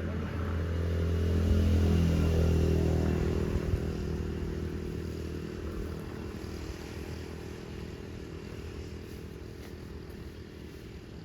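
A passing motor vehicle's engine accelerates, its pitch climbing, loudest about two seconds in. It then fades away steadily.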